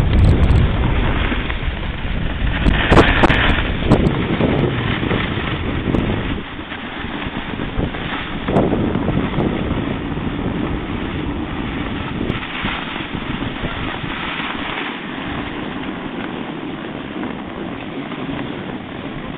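Wind buffeting the camera's microphone while skiing downhill, a heavy rumble with a few sharp knocks in the first seconds. The rumble drops away after about six seconds as the skier slows, leaving a steadier hiss of wind.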